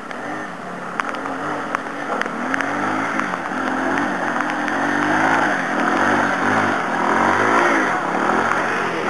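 Motorcycle engine revving up and down repeatedly under load as the bike is ridden and paddled through deep mud, growing louder as it comes closer.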